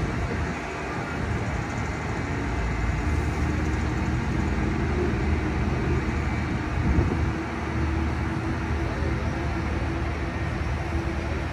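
Steady low engine drone mixed with city street traffic, with a brief louder rise about seven seconds in.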